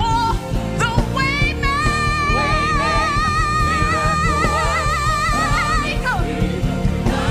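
Live gospel worship music: a band plays under a singer who holds one long note with a wide vibrato for about four seconds before moving on.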